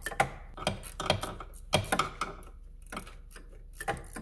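Small flex-head ratchet wrench clicking in short, irregular runs while loosening the 13 mm bolt on a serpentine belt tensioner.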